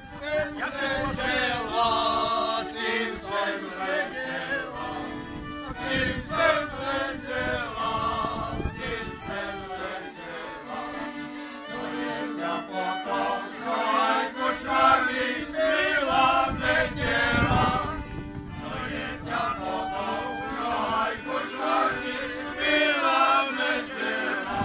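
A group of men singing a folk song together, accompanied by accordions and a fiddle.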